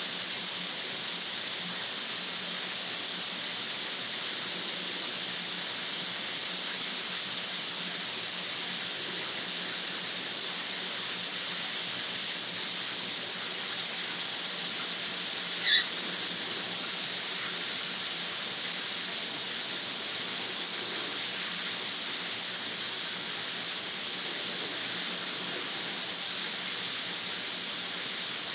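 Shower spray hissing steadily from a running showerhead. About halfway through, a lovebird gives one short, high chirp.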